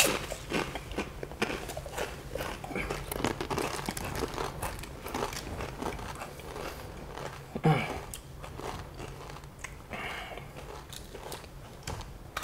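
A dry black tortilla chip, the Paqui One Chip Challenge chip, being bitten and chewed, with crisp crunches scattered throughout and a louder crunch at the start and another about two thirds of the way in.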